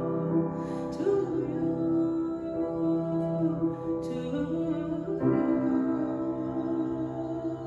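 A woman singing a slow line of long held notes, changing pitch every second or so, with grand piano accompaniment.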